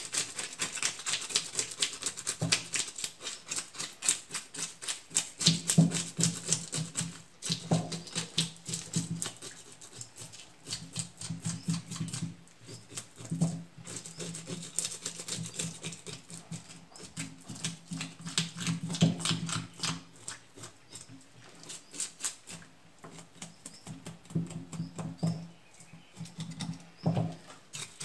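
A knife scraping the scales off a carp on a wooden cutting board: runs of fast, scratchy strokes with short pauses between them, and dull knocks now and then.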